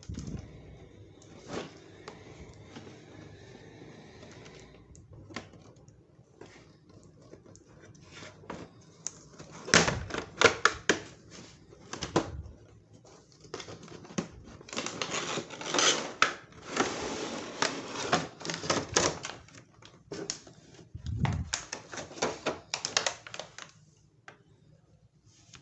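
Plastic toy train track set and its packaging handled during unboxing: quiet rustling at first, then dense runs of rapid clicks and crinkles in the second half.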